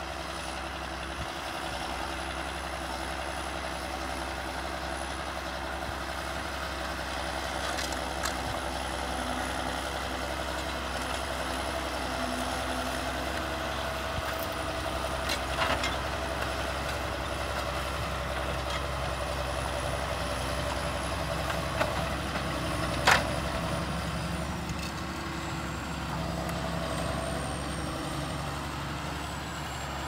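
John Deere 6930 tractor's six-cylinder diesel engine running steadily while ploughing with a mounted reversible plough, with a few short metallic knocks from the implement, the loudest about three-quarters of the way through.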